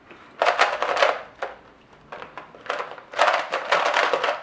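Large plastic 2x2 Rubik's Cube being turned rapidly by hand during a speedsolve: bursts of fast clicking and clacking of the layers, with short pauses between them.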